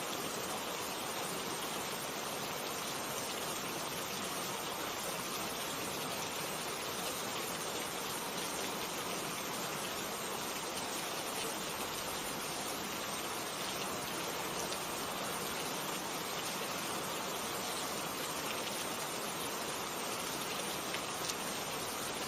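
Steady rainfall, an even hiss of rain with faint individual drops ticking now and then.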